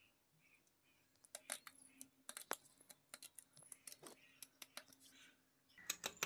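Scissors snipping through the fin of a murrel (snakehead) fish: a string of faint, sharp, irregularly spaced snips.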